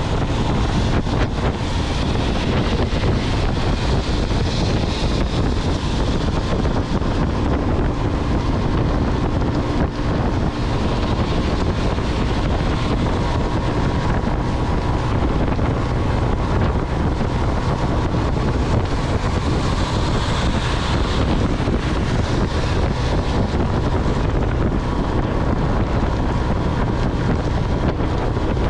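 Steady wind rush buffeting the microphone of a camera on a Motolux MTX 125 motorcycle riding at speed on a wet road in rain, with the hiss of tyres and spray mixed in.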